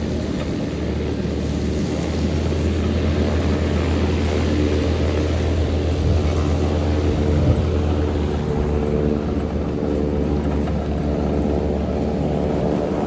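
Cessna 172N's four-cylinder Lycoming piston engine and propeller running steadily as the plane comes in to land, with a deep rumble that eases about eight seconds in.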